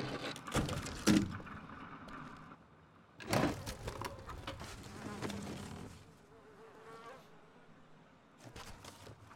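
Film sound effects: a few sharp knocks and scrapes in the first second and again a little after three seconds, then buzzing, insect-like chittering with a fast trill about seven seconds in.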